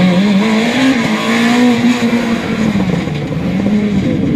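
Rally car engine running hard as the car drives past, its pitch climbing in the first second, holding high, then dipping and rising again twice as the driver works through the revs.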